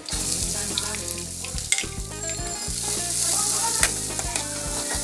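Chopped onions tipped into hot oil in a kadai, where ginger and garlic are frying, sizzling as they hit the oil; the sizzle starts suddenly and carries on steadily. A steel spoon stirs them, giving a few sharp clicks against the pan.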